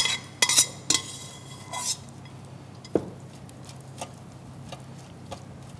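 Metal tongs clinking against a stainless steel pot as pasta is lifted out: a few sharp clanks with a short ring in the first two seconds, then only faint light taps.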